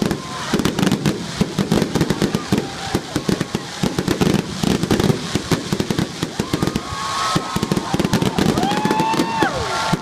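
Fireworks display going off: a dense, rapid, irregular run of bangs and crackles.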